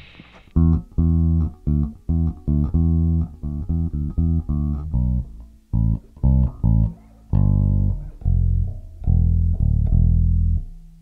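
Electric bass guitar playing a riff of short, separated plucked notes with a clean, dull tone: the fuzz pedal is bypassed.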